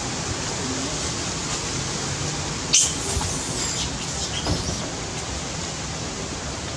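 Steady outdoor background noise, a hiss like wind or rustling, with one brief high-pitched squeak a little under three seconds in.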